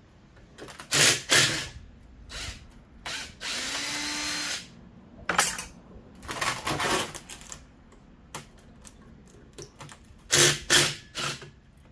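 A cordless drill runs for about a second, around three seconds in, backing a bolt out of an electric fan motor. Short metallic knocks and rattles of the motor parts being handled come before and after it.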